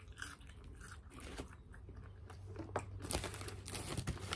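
A person chewing a mouthful of food close to the microphone: irregular soft clicks and smacks of chewing, a little louder in the second half.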